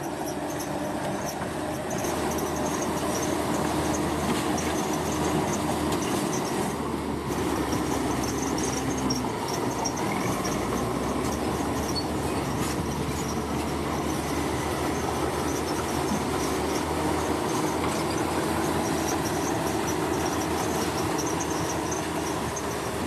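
Heavy construction machine working: a diesel engine running steadily under a continuous metallic clatter, with a thin high squeal of steel on steel.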